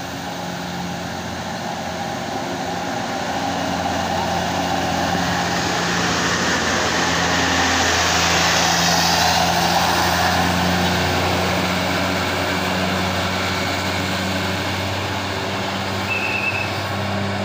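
Diesel tour bus grinding up a steep climb, its engine working hard with a steady low note. It grows louder as it approaches, passes close about halfway through, then fades.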